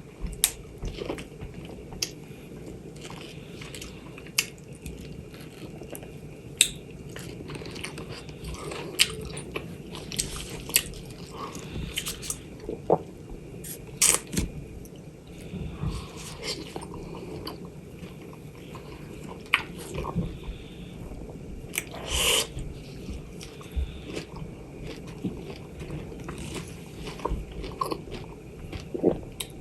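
Close-miked eating of fresh mango: irregular biting, chewing and wet lip-smacking sounds over a steady low hum.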